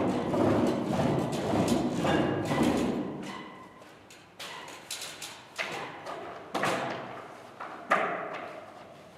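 A dense, continuous din fades out over the first three seconds. Then come about five sharp knocks, spaced roughly half a second to a second apart and echoing in a large, bare room; the loudest falls near the end.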